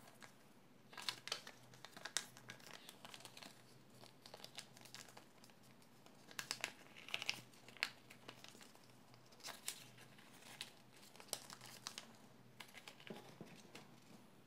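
A sheet of chart paper being folded and creased by hand: quiet crinkles and rustles in short spells every second or two.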